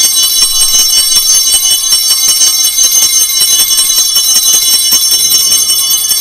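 Altar bells rung rapidly and without pause, a loud, dense, high jingling that marks the elevation of the consecrated host.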